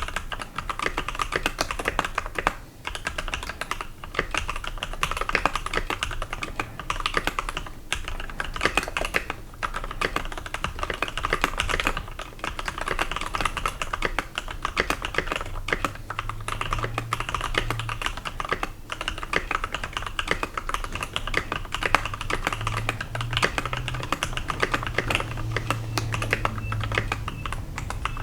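Steady fast typing on a custom 65% mechanical keyboard: lubed Gateron Yellow linear switches under MT3 keycaps, on an aluminium plate in an acrylic case. The keystrokes come in a dense run of clicks with a few brief pauses.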